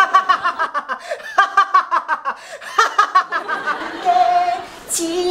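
A man laughing loudly, a rapid 'hahahaha' run of about four to five bursts a second for roughly three seconds. Around four seconds in there is a short held vocal note.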